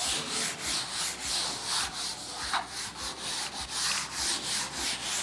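A cloth duster wiping chalk off a chalkboard, in quick back-and-forth rubbing strokes, about two or three a second.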